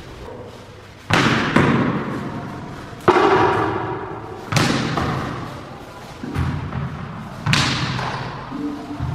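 Tennis ball being struck with a cricket bat and bouncing on a tiled floor: about seven sharp knocks, a second or two apart, each ringing on in a bare, echoing room.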